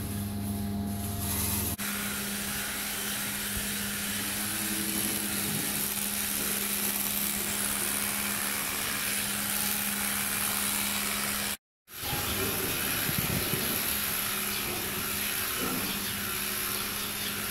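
Electric cattle clippers running steadily with a hum and hiss as a bull's coat is clipped. The sound drops out briefly about twelve seconds in.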